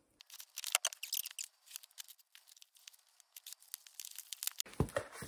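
Scissors cutting open a cardboard shipping box: a quick, irregular run of sharp snips and crackles as the blades go through the packing tape.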